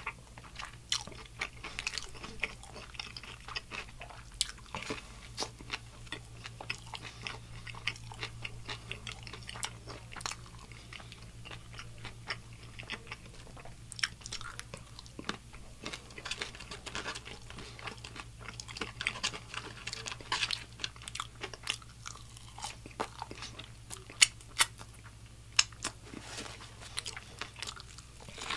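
Close-up chewing and biting of a crispy Nashville hot fried chicken slider and fries, with many sharp crunches of the fried breading, the loudest about three-quarters of the way through, over a low steady hum.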